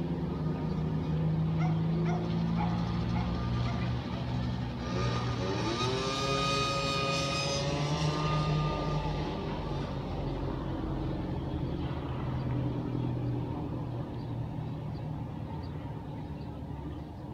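A dog howls once: one long call that rises in pitch and is held for about three seconds near the middle, over a steady low engine hum.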